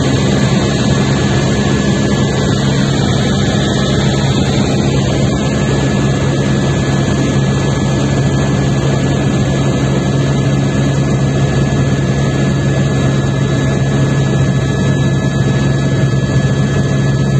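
Helicopter running steadily in flight: a constant deep drone with a thin, steady high whine over it.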